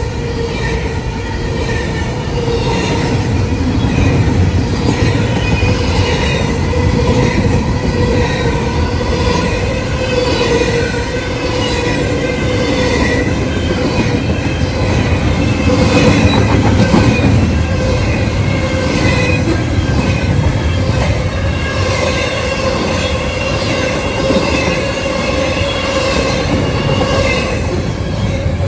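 Double-stack intermodal freight train's well cars rolling steadily past at close range: a continuous rumble of wheels on rail with high, wavering wheel squeal and repeated clicks of wheels over the rail joints.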